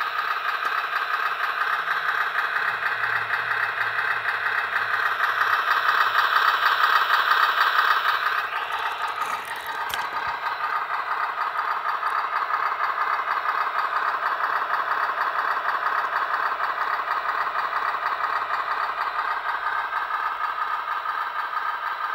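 Simulated truck engine sound from an Arduino ESP32 RC engine sound controller, played through the model truck's small loudspeaker and running steadily. It gets louder for a few seconds, drops back about eight seconds in, and a single click comes around ten seconds in.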